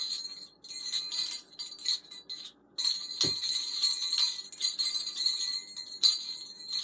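Small jingle bells on a chain-strung begleri jingling in irregular bursts as the set is flipped and swung between the fingers, with one sharp knock about three seconds in.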